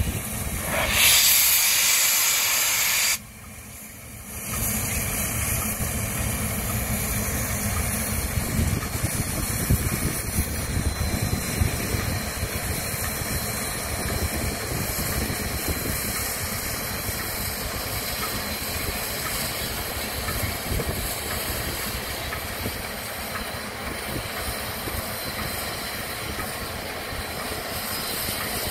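Steam locomotive CP 2816, a 4-6-4 Hudson: a loud burst of steam hiss about a second in that cuts off suddenly two seconds later, then steady hissing and rumbling from the locomotive with a few sharp clicks.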